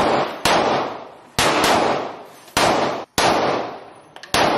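Gunshots fired one at a time, about six shots spaced half a second to a second apart, each sharp crack followed by a long echo in the enclosed indoor firing range.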